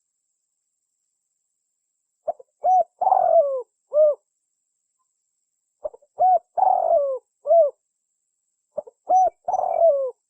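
Spotted dove (tekukur) song: three repeated coo phrases about three seconds apart, starting about two seconds in. Each phrase is a few short coos around a longer, rough note that falls in pitch.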